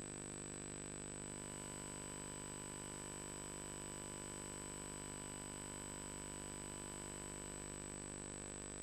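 Faint steady electrical hum and hiss from VHS tape playback over a stretch of the tape with no programme sound, with a thin high steady whine.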